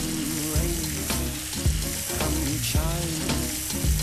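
Hot caramel bubbling and sizzling in a pan as cream is poured in and stirred with a wooden spoon, with short scraping clicks from the spoon. This is a butter caramel sauce taking in its cream.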